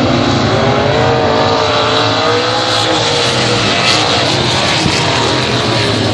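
Race car engines running loud and continuous, one engine's pitch wavering up and down as it revs for a few seconds before blending back into the general engine noise.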